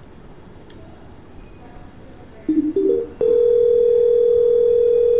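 Outgoing Zalo call on a computer: a short rising run of notes, then a steady ringback tone of about two seconds while the other phone rings.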